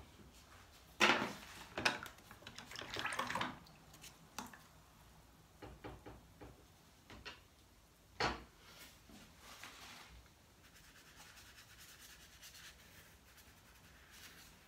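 Paintbrush and painting materials being handled: a few sharp knocks and a scratchy rubbing stretch about two to three seconds in, more light knocks up to about eight seconds in, then only faint room noise.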